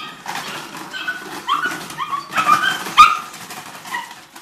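A young puppy giving a run of short, high-pitched yips and whines as it jumps at and tugs a rag, over a crackling rustle of a shaken plastic bottle and flapping cloth. A sharp knock about three seconds in is the loudest moment.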